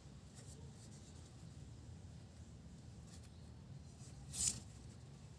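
Quiet room noise with a low steady hum and a few faint clicks, then one brief rustling scrape about four seconds in, the loudest sound here. No ringtone is playing yet.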